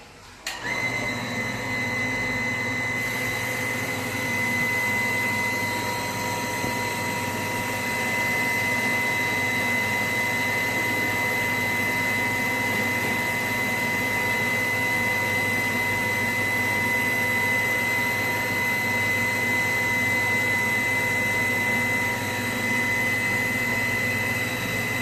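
Rooftop water booster pump's electric motor switching on about half a second in and running steadily with a high-pitched whine.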